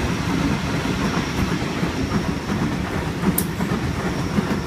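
Sydney Trains Waratah (A set) electric multiple unit departing a platform: a steady rumble of wheels on rails with faint clicks, and one sharp click about three and a half seconds in.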